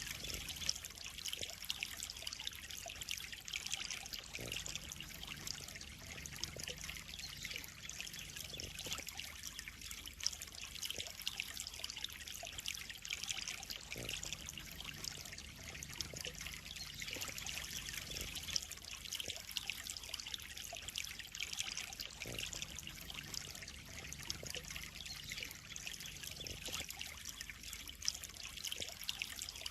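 Koi pond water trickling and splashing steadily.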